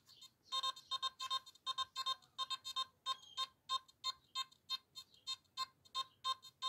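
Nokta Makro Simplex metal detector sounding its target tone: a string of short beeps at one pitch, about three a second, starting about half a second in, as a small round buckle is passed in front of its coil.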